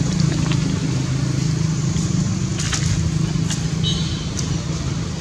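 A steady low engine hum, like a motor vehicle running nearby, with a few faint clicks and a short high chirp about four seconds in.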